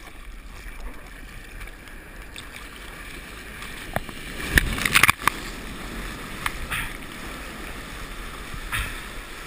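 Seawater rushing and sloshing around a surfboard being paddled through whitewater, with sharp splashes, the loudest cluster about four to five seconds in.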